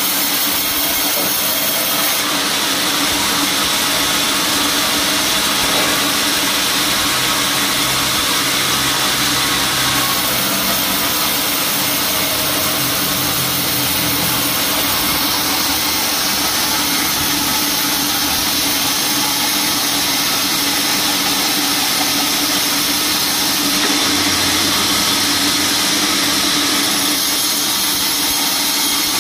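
Vertical band sawmill running and ripping a teak log lengthwise: a loud, steady machine noise with a constant hum, without pause.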